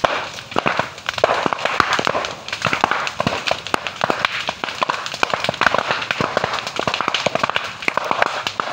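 Large fire burning through a clump of bamboo, crackling continuously with many sharp, irregular pops like firecrackers.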